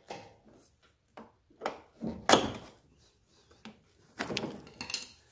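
A small metal clip being worked onto the hinge pin of a riding mower deck's discharge chute, with a tool and gloved hands. It makes a string of short scrapes, clicks and knocks; the loudest comes about two seconds in and a cluster follows near the end.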